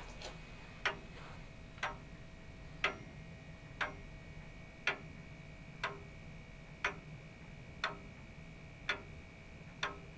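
Mid-1700s English longcase (grandfather) clock by Samuel Bentley of Kingsbridge ticking steadily, about one tick a second. Its hood is off, so the escapement's ticks come through clearly from the exposed movement.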